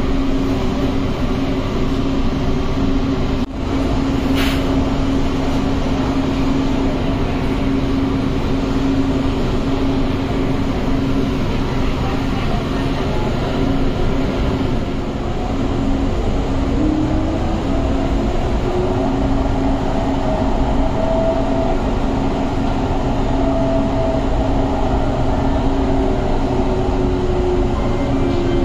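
Inside a moving metro train: the steady running rumble of the carriage on the track under a constant low hum. In the second half a whine from the train's electric drive glides up in pitch as the train changes speed.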